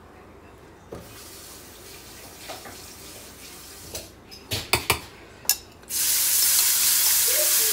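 Hot chicken grease in a frying pan sizzling faintly, with a few clinks of utensils. About six seconds in, a much louder sizzle starts suddenly as chopped onions and bell peppers go into the hot grease for gravy.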